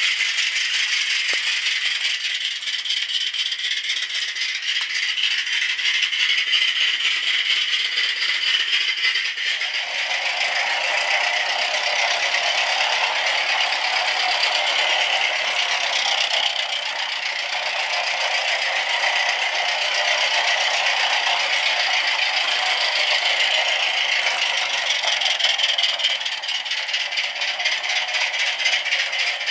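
Gas-fired Mamod live-steam saddle tank locomotive running on its track, with a fast, even rattle of exhaust beats and wheels over a steam hiss. The sound fills out and gets fuller about ten seconds in.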